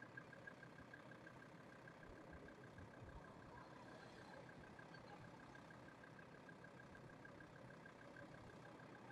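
Very faint, steady vehicle engine noise, close to silence.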